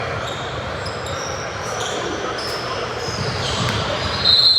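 Basketball game in a gym: repeated short sneaker squeaks on the hardwood court and dull ball bounces over a steady hall hubbub, with one louder shrill squeal near the end.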